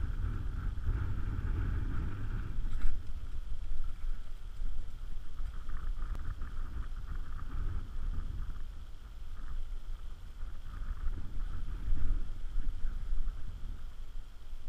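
Wind buffeting the microphone in a fluctuating low rumble, with one sharp click about three seconds in.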